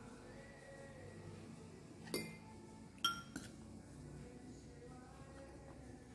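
Tableware clinking on a dining table: a clink about two seconds in, then a louder, ringing clink a second later, followed quickly by a lighter one.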